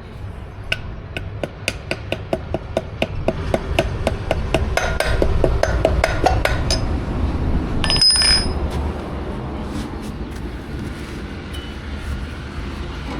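Hammer tapping on metal in a long run of quick strikes, about three to four a second, growing louder and faster, then a single metallic clink with a brief ringing tone near the end, over a low workshop hum.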